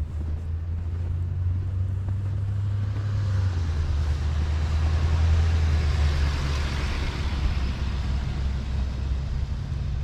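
Pickup truck driving past on a snow-covered street: a steady low engine hum with a hiss of tyres on snow that swells to its loudest about six to seven seconds in.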